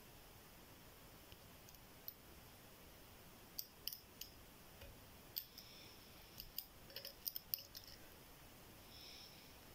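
Faint, irregular metallic clicks and light scraping of a dimple pick working the pins of a GLK ten-pin dimple euro cylinder under tension, with the clicks bunching together about seven seconds in.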